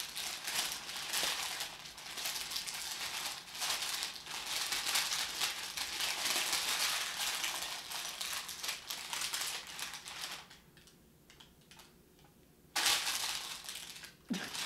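Parchment paper crinkling and crackling as it is pressed and folded into a baking pan. The crinkling stops for about two seconds near the end, then starts again briefly.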